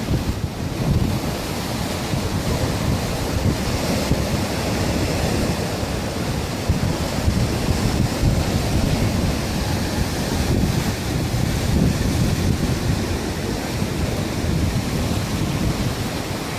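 Sea surf surging through a rocky channel and spilling off the rock ledges: a continuous rushing wash with a heavy low rumble. Wind buffets the microphone throughout.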